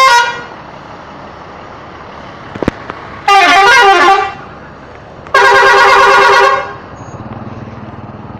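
Indonesian 'telolet' multi-tone bus horn sounding. The start catches the tail of one blast, about three seconds in a short warbling melody of changing notes plays, and a steady held chord follows for about a second and a half. A low engine hum sets in afterward.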